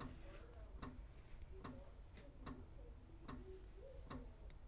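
Faint, regular ticking, a little faster than one tick a second.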